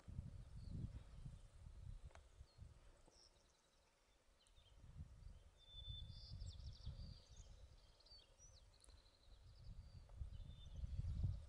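Wind gusting against the microphone, with a small songbird singing short, high twittering trills in the background during the calmer middle stretch.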